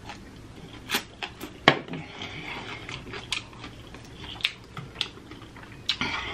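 Close-miked chewing and wet lip smacking while eating sauce-covered chicken wings, with a scattering of sharp smacks, the loudest about a second and a half in.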